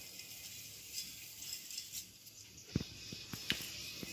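Dry ragi vermicelli tipped into a steel bowl of water with a faint rustle, then about five light clinks of a steel spoon against the bowl as it is stirred in, starting about three seconds in.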